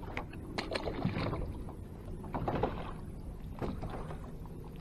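Wind and choppy water against a small fishing boat, with a few light clicks and rustles of hands handling a crappie, a jig and a spinning rod.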